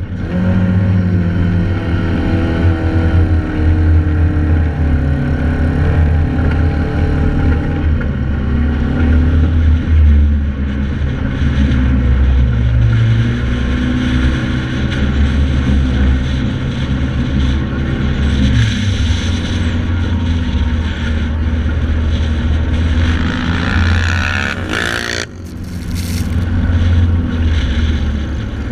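Joyner 1100 Sandviper sand rail engine running under load while climbing dunes, its pitch rising and falling with the throttle, heard from on board. The level briefly dips with a short rough clatter about 25 seconds in.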